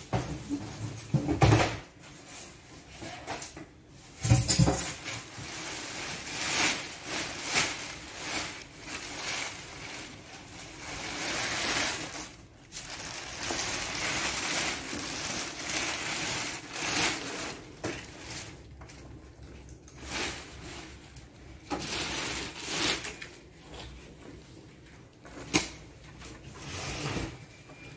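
Plastic sheeting crinkling and rustling in uneven bursts as it is pulled off a photocopier by hand, with a few sharp knocks, two of them in the first five seconds.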